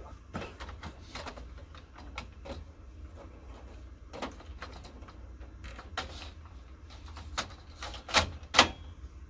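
Plastic clicks and knocks of parts being handled and fitted into an open laser printer, irregular throughout, with two louder knocks close together near the end.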